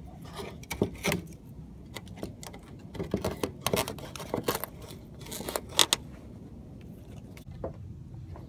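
Irregular metallic clicks and clinks, thickest in the middle, as an old gutter spike is handled in a metal rain gutter. A steady low rumble lies underneath.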